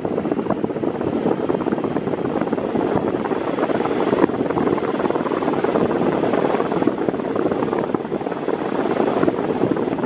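Six-blade Mondial 40 cm, 140 W floor fan running on its lowest speed, a steady rushing of air with the airflow buffeting the microphone.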